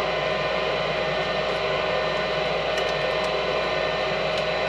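Nordyne gas furnace running: a steady hum and rush of air from its fans, with a few faint ticks a little past the middle.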